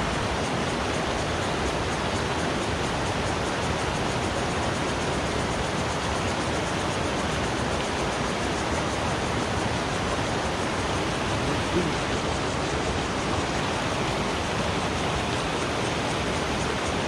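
Steady rush of a shallow, rocky mountain stream running over stones and small rapids, heard close up.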